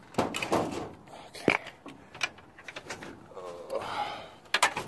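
Scattered knocks and clicks of tools, bricks and the phone being handled, the sharpest knock about one and a half seconds in, with a short wavering pitched sound near the end.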